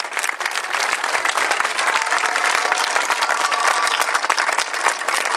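Crowd applauding: many people clapping at once.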